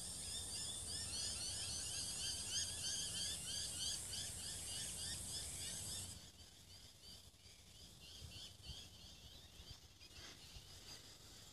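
Natural outdoor ambience: a steady high insect buzz with a fast, regular series of short chirps, about three or four a second. The buzz cuts off suddenly about six seconds in, leaving the chirps fainter.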